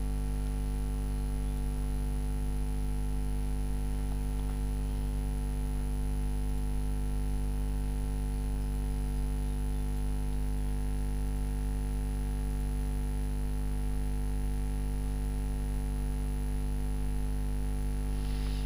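Steady electrical mains hum in the recording: a low drone with a ladder of overtones and a faint high whine above it, unchanging throughout.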